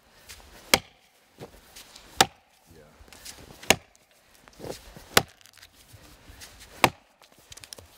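Ax chopping into a log lying on the ground: five sharp strikes about a second and a half apart, each biting into the notch being cut.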